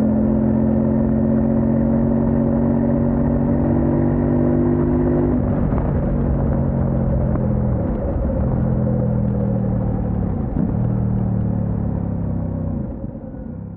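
Kove 800X Pro's parallel-twin engine running under way, with a steady note at first that drops to a lower pitch about five seconds in. The note dips briefly twice, then fades out at the end.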